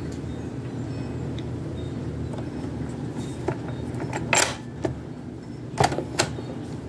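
Plastic clicks and snaps of a SchoolMate portable cassette player being loaded by hand: the tape going into the door, a sharp snap about four and a half seconds in, then two key clicks near the end as the piano keys are pressed. A low steady hum lies underneath.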